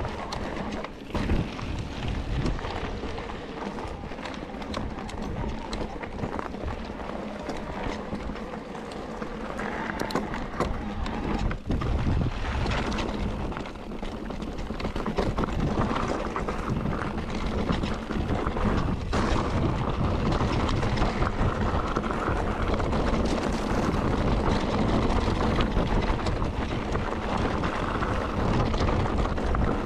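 Mountain bike ridden along a forest trail: tyres rolling over rough ground, with occasional knocks and rattles from the bike, and wind buffeting the microphone. It gets louder over the second half.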